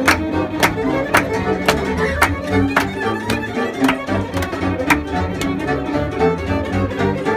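Live violin playing an instrumental passage of a Romanian tavern song, over a steady bass line and a regular beat of sharp strikes about twice a second.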